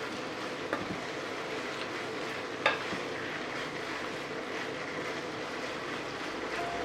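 Food sizzling steadily in a pan, with a few light clicks of a utensil against it, the clearest about two and a half seconds in.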